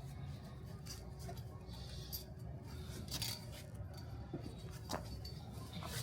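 Handwork on a charpai's cord weave: scattered short scrapes, rustles and snips of rope against the frame over a low steady background hum.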